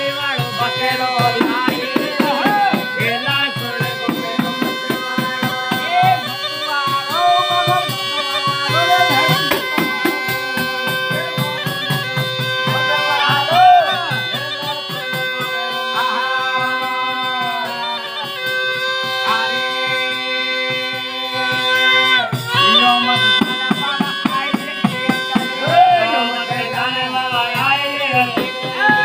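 Traditional Indian folk music: a steady drone under a wavering, gliding melody, with dense percussion strokes keeping the beat.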